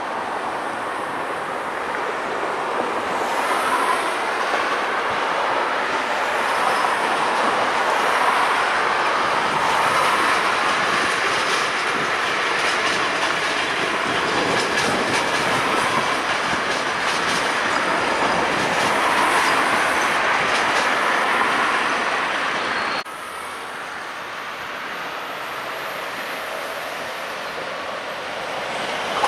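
Passenger train of blue-and-white ČD coaches rolling past, with steady rail noise, clickety-clack of wheels over rail joints and points, and thin squealing tones. About twenty-three seconds in the sound drops suddenly, and a quieter train rumble builds near the end as an ÖBB Railjet hauled by its electric locomotive approaches.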